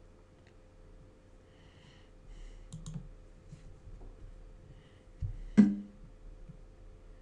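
A few faint computer-mouse clicks while moving pieces in an online chess game, with one louder, sharper click about five and a half seconds in. A faint steady hum sits underneath.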